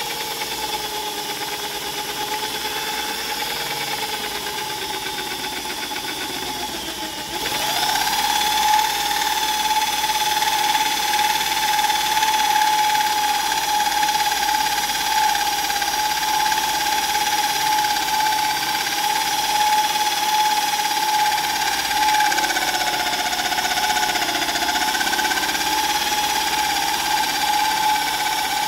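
Drill press boring a deep hole down into a block of carved wood, its motor running with a steady whine. About seven seconds in the whine rises in pitch and grows louder, then holds steady.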